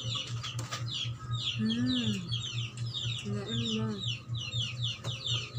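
Chicks peeping continuously: rapid, high, downward-sliding peeps, several a second, over a steady low hum.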